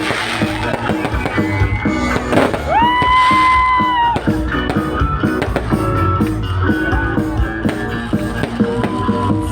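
Loud amplified pop music from a concert sound system, with a steady beat and one long held high note about three seconds in.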